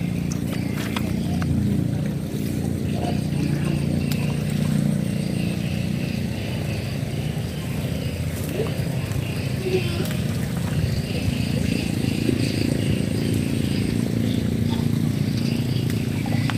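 An engine running steadily, a continuous low drone that holds the same level throughout.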